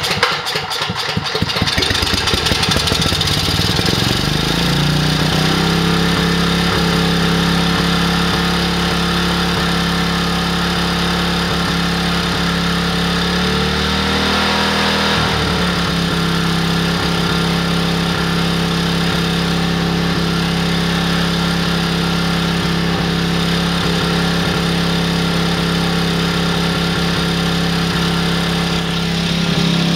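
Wheel Horse 5500 portable generator's overhead-valve engine running after its first start since a damaged rocker arm and push rod were repaired. It speeds up to a steady governed speed over the first few seconds. About halfway through it sags briefly and picks back up, then runs evenly.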